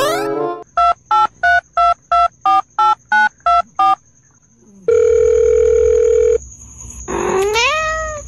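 Telephone touch-tone keypad beeps: ten presses, about three a second, each a pair of tones. Then a steady phone tone for about a second and a half, and a pitched call that rises and levels off near the end.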